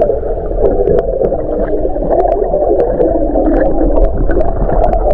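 Underwater sound picked up by a submerged camera: a steady, muffled rush of moving water with scattered sharp clicks and ticks.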